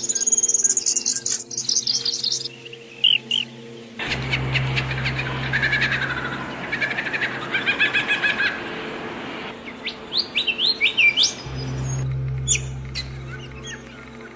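Several songbirds chirping and singing: quick high chirps, trills and short rising whistles overlapping. The background changes abruptly twice, as if separate recordings were joined.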